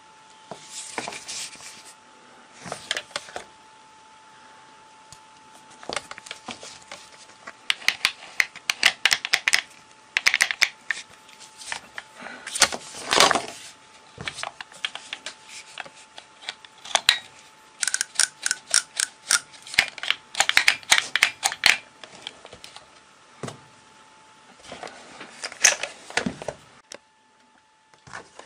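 Clicks, taps and rattles of hands handling a Mac Allister MSAG1010 angle grinder's plastic housing, in uneven clusters of quick clicks. A faint steady tone runs underneath.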